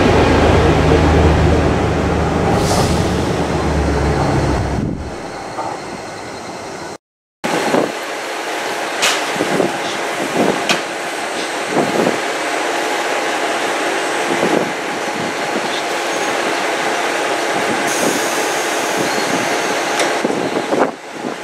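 JR KiHa 11 diesel railcar's engine. A deep drone fades away about five seconds in, and after a short break the railcar sits idling at the platform with a steady hum. A few short knocks sound over the hum.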